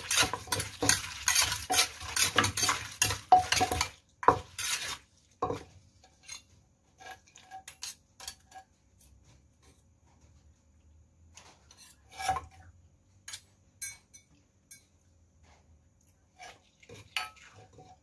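Wooden pestle knocking in a clay mortar while a metal spoon scrapes and turns the som tam dressing. Dense clattering for about the first four seconds, then only scattered clinks and taps.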